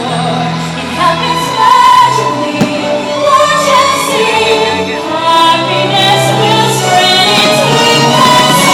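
Orchestral show music with a choir singing sustained notes.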